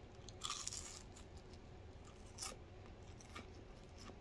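A person biting into a crispy fried spadefish fillet and chewing it, faint, with a short crunch about half a second in and a few small crunches after.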